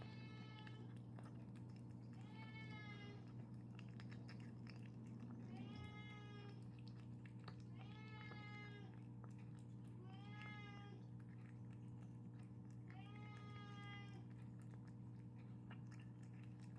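Domestic cat meowing six times, each meow short with a rising-then-falling pitch, spaced two to three seconds apart, over a steady low hum.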